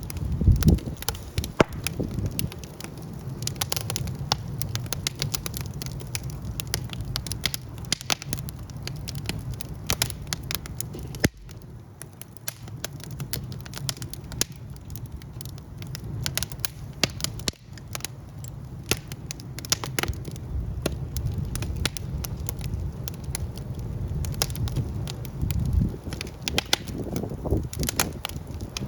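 Wood fire in a fireplace crackling, with frequent sharp pops and snaps over a steady low rumble of the flames. The sound drops abruptly twice, about 11 and 17 seconds in.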